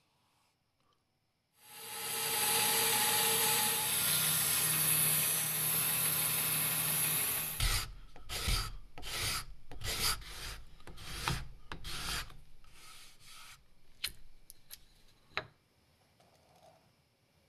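A power tool runs steadily for about six seconds and cuts off, then a series of scraping strokes on wood, one every half second or so, that thin out and fade away.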